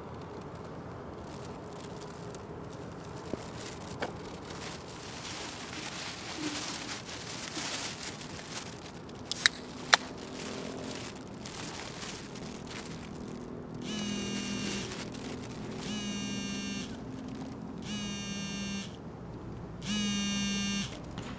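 A mobile phone vibrating with an incoming call: four buzzes, each about a second long and about two seconds apart. Before that there is some rustling of a plastic bag and two sharp clicks about halfway through.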